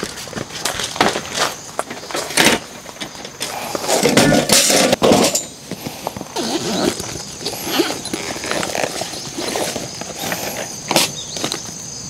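Camping gear being handled and set up: scattered knocks, clicks and clatters, with a longer, louder stretch of rustling and scraping about four seconds in.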